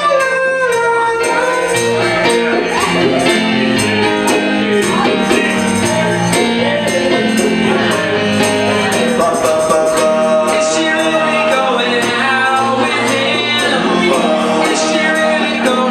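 Live song: a Korg keyboard playing chords over a steady beat, with a man singing into a microphone at times.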